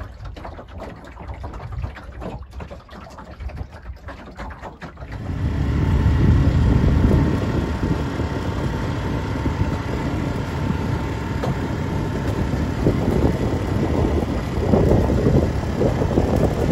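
Small sailboat under way: for about five seconds a softer rush of water and wind, then wind buffeting the microphone comes in loud, a low, uneven rumble.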